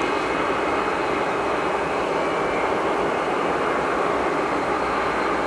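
Boeing 737-800's CFM56-7B turbofan engines running at taxi power as the airliner rolls along the airfield: a steady jet rumble with a faint high whine.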